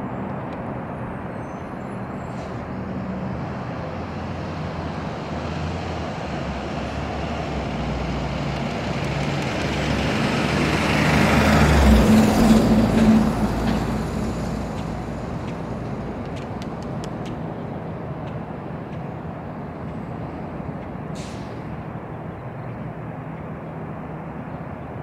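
A motor vehicle passing: engine and road noise build to a peak about halfway through, then fade away over a steady low traffic hum.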